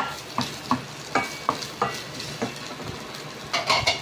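Chopped ginger frying in hot oil in a stainless steel pot, stirred with a wooden spatula that scrapes and knocks against the pot every few tenths of a second over a light sizzle. A quick run of louder knocks comes near the end.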